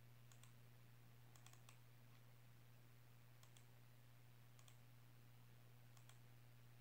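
A handful of faint computer mouse clicks, several in quick pairs like double-clicks, over a steady low hum.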